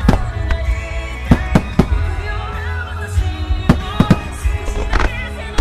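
Starmine fireworks barrage: aerial shells bursting in about eight sharp bangs, irregularly spaced, over continuous music.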